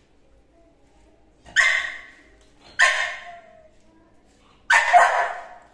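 American bully puppy barking three times, sharp barks a second or two apart, the last the longest: demand barks begging for the puffcorn being eaten beside it.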